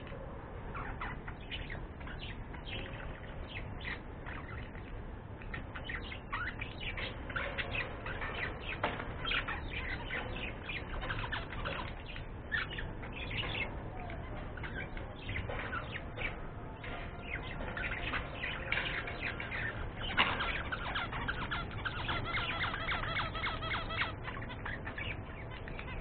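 Budgerigars chattering in a cage: a dense run of short, high chirps and warbles, busier in the second half, with one louder call about 20 seconds in.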